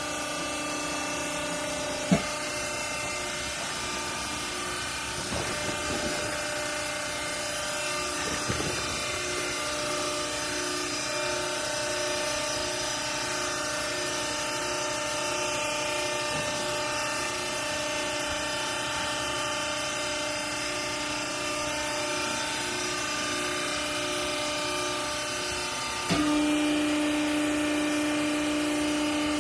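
Textile cloth baler machine running with a steady mechanical hum made of several held tones and a single click about two seconds in. About 26 seconds in it steps up in level, adding a stronger, lower tone.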